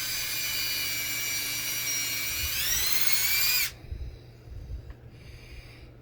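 Electric drill drilling a hole, its motor giving a steady high whine. The pitch rises about two and a half seconds in, and the drill stops suddenly a little past halfway.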